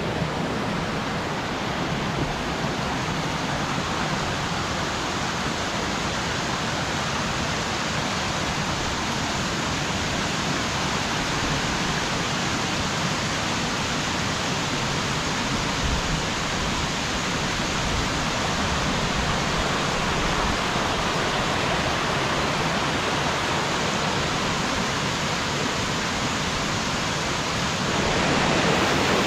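Small woodland waterfall cascading over rock ledges: a steady rush of falling water, growing a little louder near the end.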